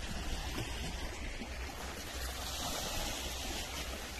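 Sea water washing against a rocky shore, a steady rushing noise with a low rumble underneath.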